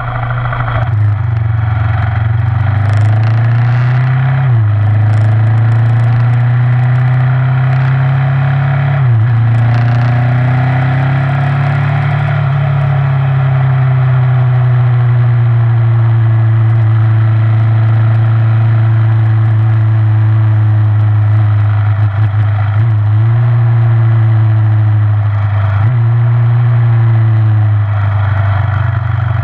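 KTM motorcycle engine running under way, its steady note dipping briefly four times at the gear changes, with wind noise on the microphone.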